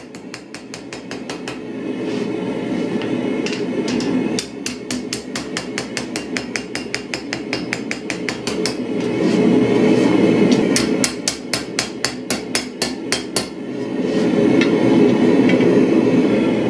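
Hammer blows on a red-hot steel blade lying on an anvil: a fast, even run of light strikes, several a second, as the forged blade is straightened and flattened. The strikes stop a few seconds before the end, leaving a steady low rumble.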